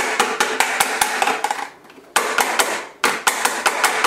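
Clear plastic chocolate mold, turned upside down, being knocked rapidly against the worktop to release the frozen chocolates. It comes as quick clattering taps, about seven a second, in three runs with short pauses about two and three seconds in.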